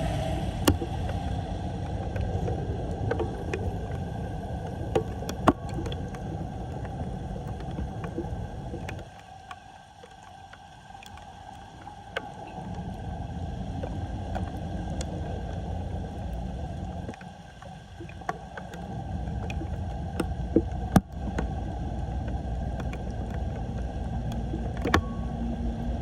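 Floodwater draining into a cleared storm drain: a steady low rushing rumble that eases off twice for a couple of seconds, with scattered sharp clicks.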